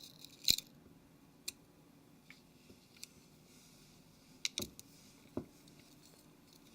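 Faint, scattered small clicks and taps of a screwdriver and fingers on a smartphone's plastic and metal parts as its main board is worked free, about half a dozen with a few seconds between some of them.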